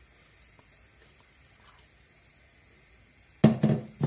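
Faint trickle of water poured from a plastic jug into a pot of lentil stew, then about three and a half seconds in a quick cluster of loud knocks as the plastic jug is set down on the worktop.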